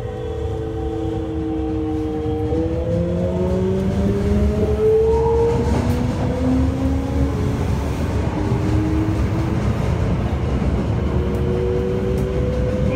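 Toei 5300 series subway train running under its Mitsubishi GTO-VVVF inverter. Several whining motor tones shift and glide, mostly rising in pitch, over a steady rail rumble, and the sound grows louder through the first few seconds as the train picks up speed.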